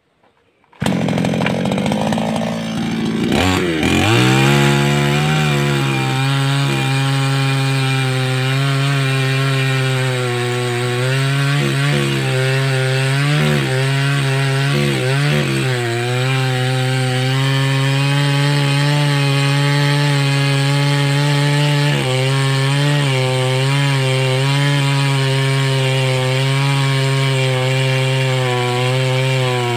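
588X two-stroke chainsaw coming in suddenly about a second in, rising in pitch over the next few seconds, then running at high speed while cutting wood, its pitch dipping briefly now and then under load.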